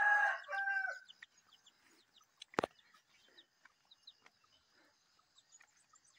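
A rooster crowing, its call ending about a second in, followed by a single sharp click. Faint high chirping goes on behind.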